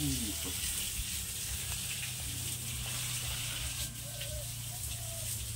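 Steady background hiss with a low hum underneath.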